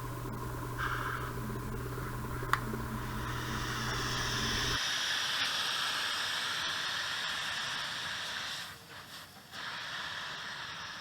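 Refrigerator compressor humming while air hisses out of the cut filter pipe as the system self-vacuums. The hum cuts off suddenly about halfway through and the hiss carries on, with a single sharp click a couple of seconds in.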